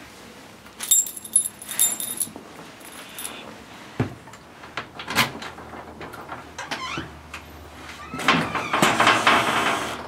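A metal security screen door being unlocked and opened: a metallic jingle early on, a sharp click of the lock about four seconds in, a brief squeak, then a louder, longer scraping noise over the last two seconds as the door is worked open.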